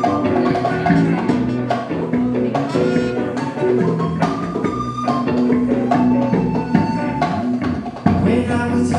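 Live band music: a wooden flute plays a melody of held notes over electric bass and electric guitar, with percussion hits throughout.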